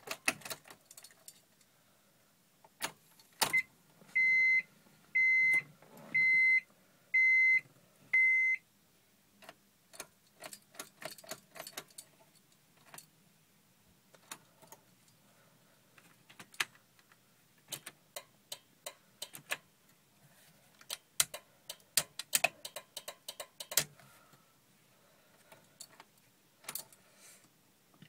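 A 1990 Acura Integra's warning beeper sounds five times, about once a second. Then comes a long run of irregular clicks and key jangles, with no engine cranking or starting: the car won't start.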